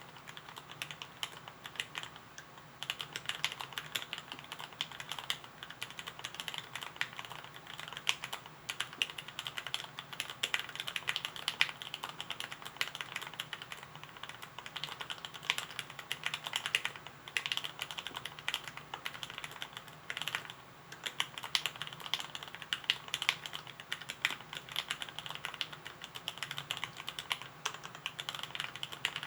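Fast continuous typing on an acrylic sandwich-mount Arisu mechanical keyboard with lubed and filmed KS3 Gateron Yellow linear switches and ABS keycaps, a dense run of keystroke clacks with short pauses now and then.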